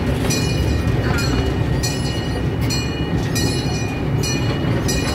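Small zoo train running along its track: a steady low rumble from the locomotive and cars, with short high-pitched metallic squeaks from the running gear about once a second.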